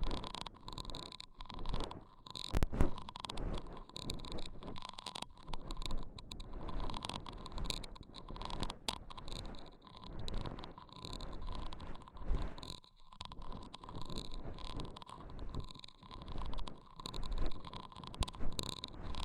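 Layered close-microphone ASMR triggers: soft rubbing and scratching with quick light clicks, coming in irregular swells.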